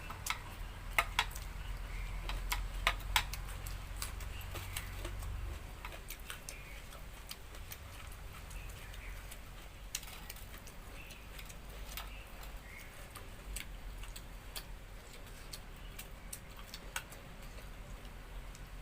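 Eating sounds: irregular sharp clicks and small smacks from someone eating a rice meal by hand, thickest in the first few seconds.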